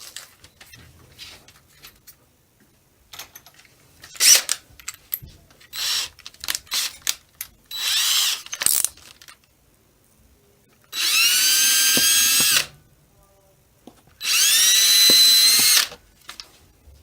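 Power drill boring holes through a headlight's back cap for wire pass-throughs: a few short trigger bursts, then two longer runs of about a second and a half, each whining up in pitch as the motor spins up and then holding steady.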